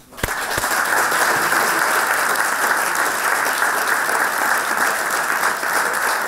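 Audience applause: many people clapping steadily, starting just after the start and holding on throughout.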